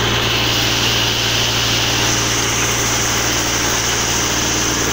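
Sawmill engine running steadily, a constant low drone with a high hiss over it.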